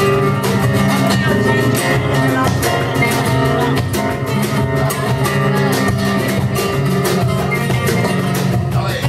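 Flamenco guitar playing: a run of plucked notes cut through with frequent sharp, percussive strokes.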